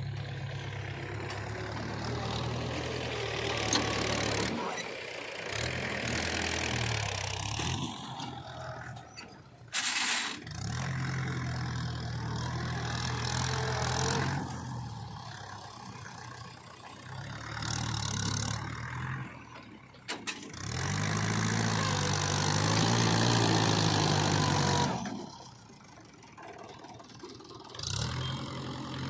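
Heavy diesel engine working, its revs rising and falling in several spells under load. There is a sharp knock about ten seconds in.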